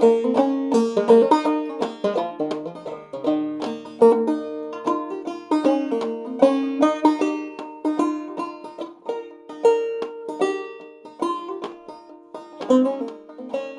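Five-string banjo played clawhammer style: a steady run of plucked melody notes over ringing drone strings, in sawmill tuning pitched about a tone and a half low. The notes ring out and the playing tails off near the end.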